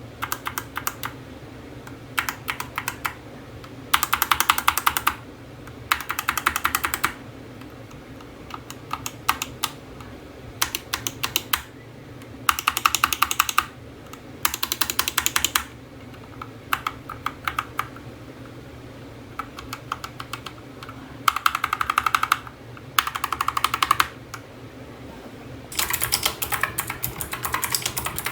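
Typing on a mechanical keyboard: short bursts of rapid keystroke clicks separated by brief pauses, with a longer run of typing near the end.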